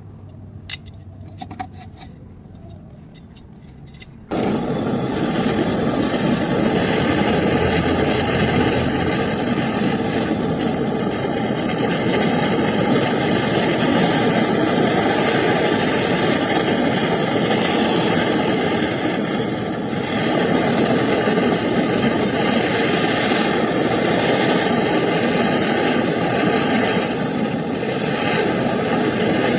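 A few faint clicks, then about four seconds in a gas welding torch comes on with a sudden, loud, steady hiss of the flame, brazing a refrigerator's copper gas pipe.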